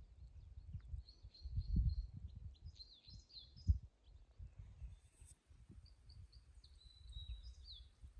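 Small songbirds chirping in quick runs of short high notes, about a second in, around three seconds in, and again in the second half. Under them is an uneven low rumble, with a single sharp thump about three and a half seconds in.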